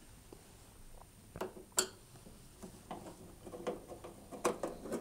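Crosshead screwdriver turning screws out of a dishwasher's sheet-metal base plate: faint, scattered clicks and ticks of the tool against the screws and metal, sparse at first and more frequent in the second half.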